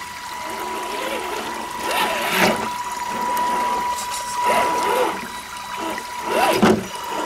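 Axial SCX10 II RC crawler's electric motor and geared drivetrain whining in short bursts, the pitch rising and falling as the throttle is worked, about three times, while it crawls through a stream. Shallow water trickles and splashes around the wheels.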